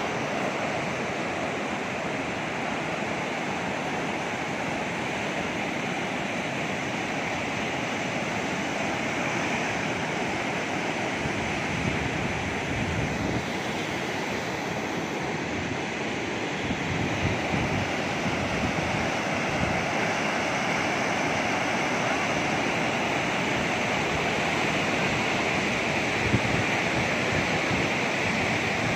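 Fast-flowing floodwater rushing steadily over a flooded field and bank.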